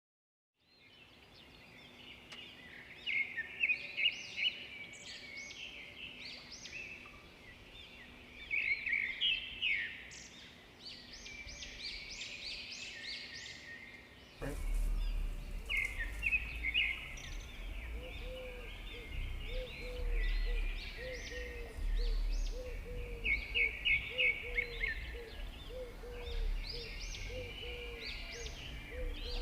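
Small birds chirping and twittering in quick high bursts. About halfway through, the recording changes abruptly: a low rumble comes in, and a low note starts repeating about every two-thirds of a second under the chirps.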